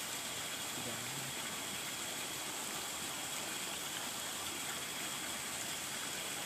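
Steady, even hiss with no change in level, like running water or background noise; a faint voice murmurs briefly about a second in.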